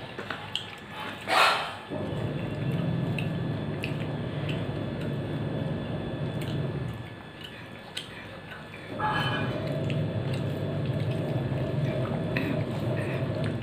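Hand-eating sounds from a steel plate: soft chewing and fingers mixing rice, with faint clicks and a brief louder sound about one and a half seconds in. Under it runs a steady low hum that drops out twice for a second or two.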